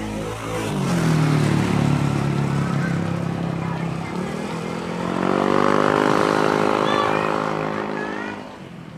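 Engines of vehicles passing close by: one engine's pitch falls as it goes past about a second in, then another engine's note rises about five seconds in, holds, and fades near the end. A few short high chirps sound near the end.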